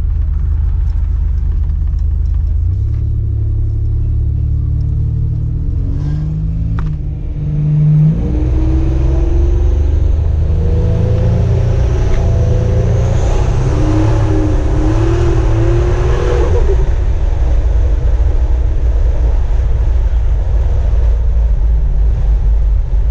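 1987 Buick Grand National's turbocharged 3.8-litre V6 accelerating hard on a half-throttle pull at about 14 psi of boost from a large 6766 turbo. Engine pitch climbs, dips briefly at a gear change about seven seconds in, then climbs again with a faint high turbo whistle, and settles to steady running about seventeen seconds in.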